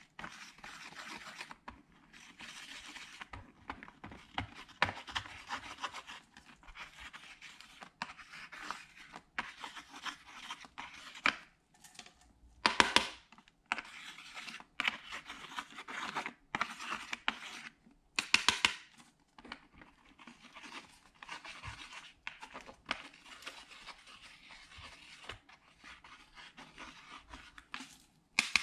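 A plastic tool scraping pressed powder pigment out of a palette pan, in repeated short scratchy strokes with brief pauses between them, two of them louder partway through.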